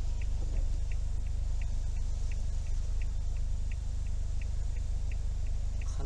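Steady low rushing roar of the flood-swollen Tama River, heard from inside a stopped car, with a regular light tick about three times a second over it.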